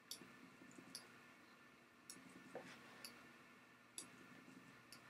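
Faint, irregular clicks of a computer mouse, about seven in five seconds, over near-silent room tone.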